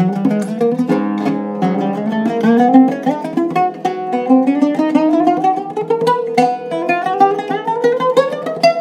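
Iraqi-style oud with a cedar soundboard and walnut back, plucked in quick runs of notes across the whole fingerboard, with scales climbing higher through the second half.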